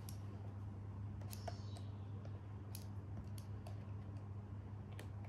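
Faint, scattered light clicks and taps as a small tool is worked into a cardboard retail box to open it, over a steady low hum.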